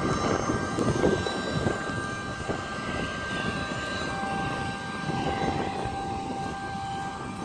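Turbofan engines of an Embraer E175 regional jet taxiing at low power: a steady whine of several high held tones over a rushing noise. A lower tone joins about four seconds in.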